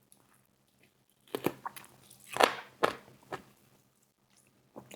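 Bites and chewing crunches on a sauced KFC Honey BBQ fried chicken wing. There are several short crunches starting about a second in, with quiet before and after.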